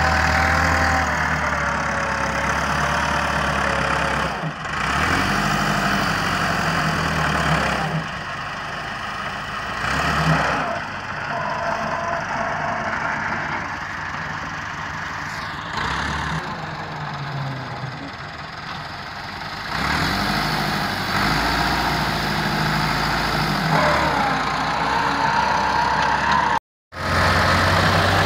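Massey Ferguson 385 tractor's four-cylinder diesel engine running under load as it pulls a trolley heaped with soil through soft mud. The engine note shifts abruptly several times and drops out for an instant near the end.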